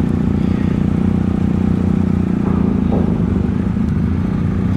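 BMW R1250 boxer-twin motorcycle engine idling steadily, a continuous low rumble, as the bike waits to ride off a ferry deck.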